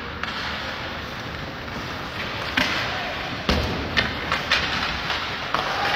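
Ice hockey play on the rink: skates scraping on the ice and sharp knocks of sticks and puck. Several knocks come from about two and a half seconds in, the loudest about a second later.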